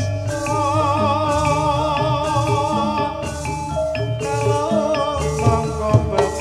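Javanese gamelan music: struck bronze pot gongs and metallophones with a low drum and gong pulse, under a long, wavering sung vocal line, a man singing into a microphone.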